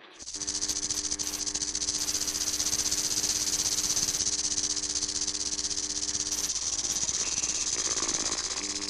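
A loud, steady hiss, strongest in the high range, that starts abruptly, with a faint low hum beneath it that stops about six and a half seconds in.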